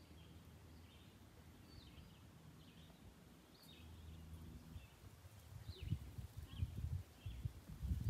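Birds chirping with short, falling notes, over a faint low rumble. From about halfway through, a run of irregular low thuds becomes the loudest sound.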